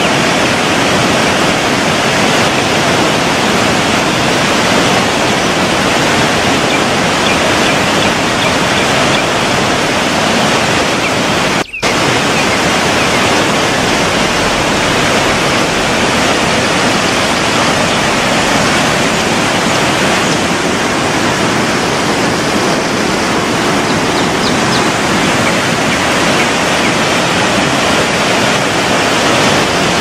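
Steady, loud rushing of a waterfall and cascading stream, which cuts out for an instant about twelve seconds in.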